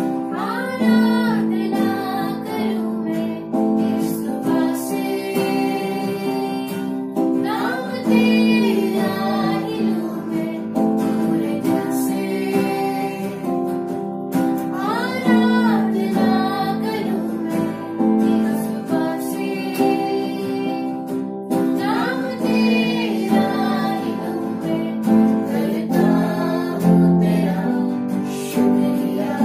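A woman singing a slow worship song in phrases that rise and fall every few seconds, accompanied by a strummed acoustic guitar.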